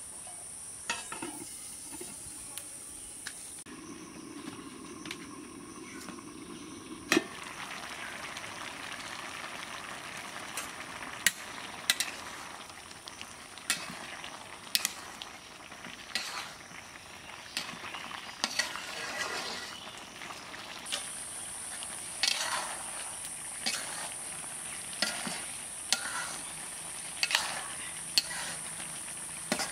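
Pumpkin, amaranth and shrimp curry sizzling in a kadai. From about seven seconds in, a metal ladle stirs it, knocking and scraping against the pan about once a second.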